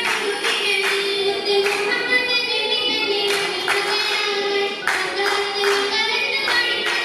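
A group of girls singing an oppana, a Mappila wedding song, with sharp hand claps in rhythm at intervals.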